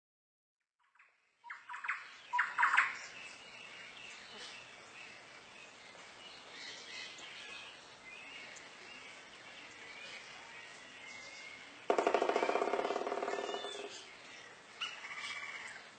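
Birds chirping and calling, with a loud rapid rattle about eleven seconds in that lasts about two seconds.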